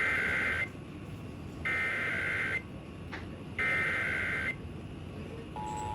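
Emergency Alert System SAME header: three bursts of screechy digital data tones, each just under a second long and about a second apart. Near the end the steady two-tone EAS attention signal starts, opening a Required Monthly Test broadcast over FM radio.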